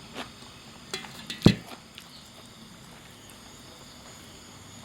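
A few short knocks and clicks, the loudest about a second and a half in, followed by a faint steady background.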